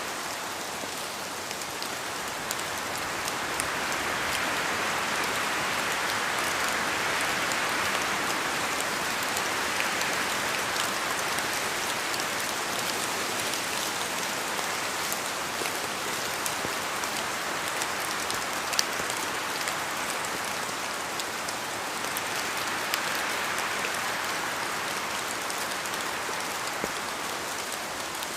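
Steady rain falling in a forest, with many separate drops ticking as they fall from the trees. A broad rushing hiss swells twice for several seconds as wind moves through the branches.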